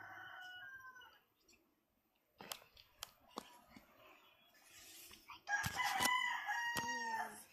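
A rooster crowing: one crow trails off in the first second, then a louder full crow comes about five and a half seconds in, lasting under two seconds and ending on a falling note. A few sharp taps sound in between.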